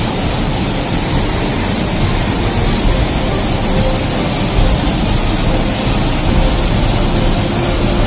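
Loud, steady rushing of a flash flood's water in a wadi, with no breaks or separate impacts.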